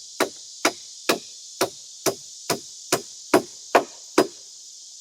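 Hammer strikes on wood, evenly paced at about two a second, ten blows in all, stopping a little after four seconds in.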